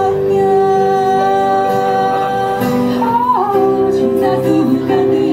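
Live performance of a Malay pop ballad: women singing, accompanied by acoustic guitar and violin, with long held notes and a sliding note about three seconds in.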